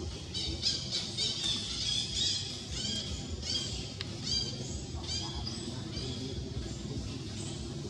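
A series of short, high-pitched squeaky calls, each rising then falling, about two a second, thinning out about five seconds in, over a steady low rumble.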